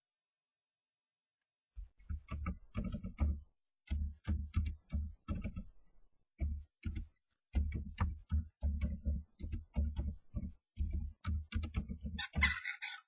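Common starlings knocking and thumping inside a wooden nest box: irregular runs of sharp knocks, several a second, beginning about two seconds in. Near the end a starling gives a short harsh, raspy call.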